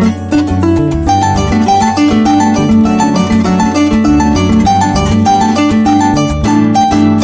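Joropo music led by a llanera harp playing fast plucked runs, with cuatro, electric bass and maracas keeping a quick, steady rhythm.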